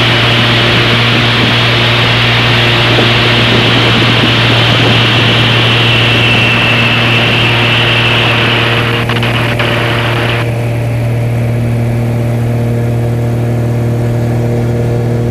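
Extra 300 aerobatic plane's six-cylinder Lycoming engine and propeller running at high power under loud wind rush in the cockpit during a high-G turn. About ten seconds in the rushing noise drops off suddenly, leaving the steady engine drone.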